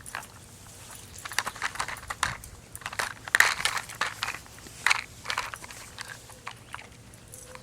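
A dog working a treat puzzle toy: irregular knocks and clatter as it flips the toy's bones and lids open, with chewing of treats.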